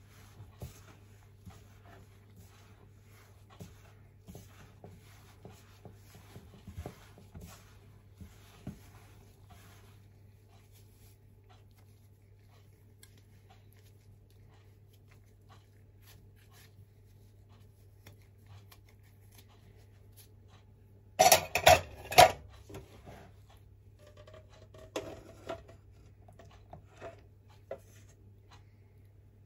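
A metal spoon and gloved fingers scraping and stirring glutinous rice flour in a stainless steel bowl, faint soft scrapes and clicks. About two-thirds of the way through comes a quick run of loud metal clanks of steel pot and bowl knocking together, then a few lighter knocks as the pot is tipped over the bowl, over a steady low hum.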